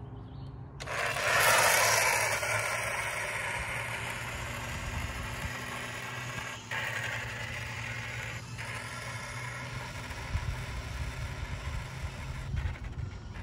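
Toy RC motorcycle (Adventure Force Ducati) setting off across asphalt: its electric drive whirring and small tyres rolling with a scraping hiss. The sound starts suddenly about a second in, is loudest just after, and fades steadily as the bike drives away.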